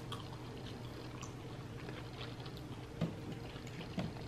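Chewing food with soft, wet mouth clicks, with a couple of slightly louder clicks about three and four seconds in.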